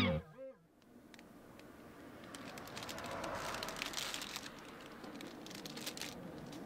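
Thin plastic snack packaging crinkling as it is handled and opened, a run of crackly rustles that builds about a second and a half in and thins out near the end.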